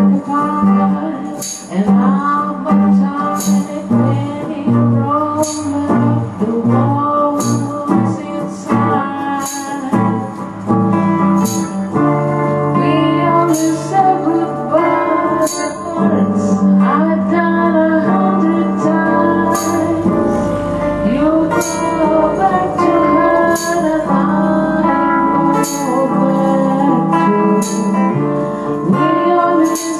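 A small amateur band playing live: a woman singing into a microphone over electric guitar, with a tambourine struck about once a second.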